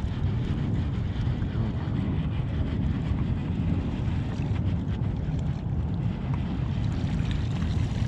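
Wind buffeting the microphone, a steady low rumble out on open water.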